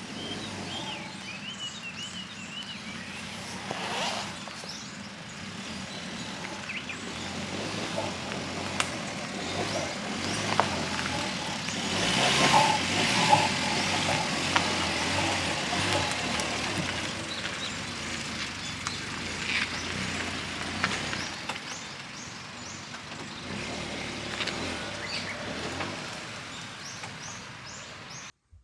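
Outdoor ambience: a steady broad noise with a few bird chirps near the start, scattered small clicks, and a louder swell around the middle.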